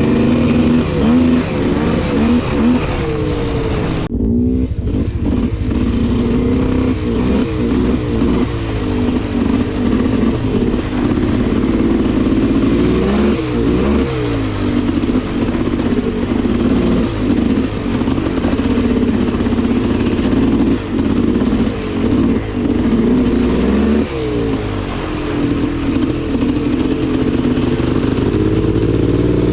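Polaris Scrambler 400 two-stroke ATV engine running on the move, its revs rising and falling with the throttle throughout.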